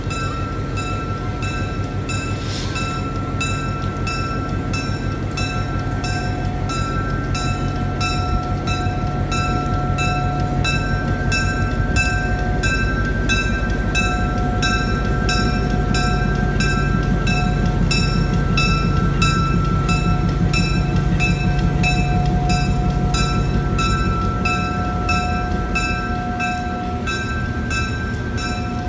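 Passenger train hauled by steam locomotive Granite Rock No. 10 rolling slowly past with a low rumble that grows louder toward the middle, while a locomotive bell rings steadily about twice a second.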